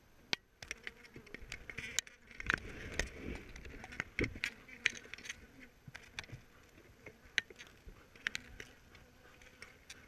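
Honeybees buzzing over an open hive, with a string of sharp clicks and knocks from a hive tool working the wooden frames.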